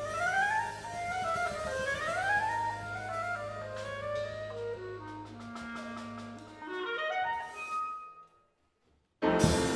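Jazz clarinet with big band playing swooping rising runs over a held bass note, then climbing to a high held clarinet note that ends the piece about eight seconds in. After about a second of silence, different music starts abruptly.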